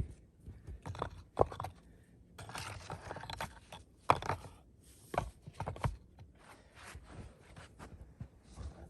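Rocks being moved and stacked into a stone fire-pit wall: irregular sharp knocks of stone on stone and scraping, with crunching in snow between them.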